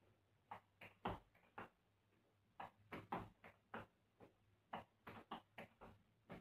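Tap shoes' metal taps striking a tiled floor in quick clusters of sharp clicks with short pauses between the phrases: hoofing, rhythm-tap footwork.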